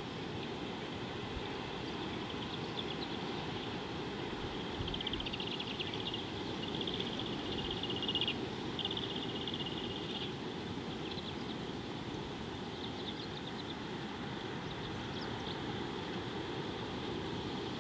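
Outdoor bush ambience: a steady low rumble of wind on the microphone under a steady high hiss. From about five to ten seconds in, a high, rapid buzzing trill sounds twice, with a short break between.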